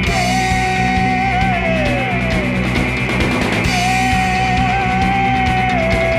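Rock band playing live, with drums and electric guitar under a lead singer who holds two long notes, the second coming in about halfway through.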